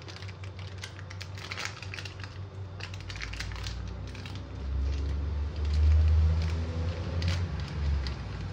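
Plastic milk-powder sachet crinkling and crackling as it is squeezed and shaken, with powder pouring into a steel bowl. A low rumble rises about three seconds in and runs to near the end.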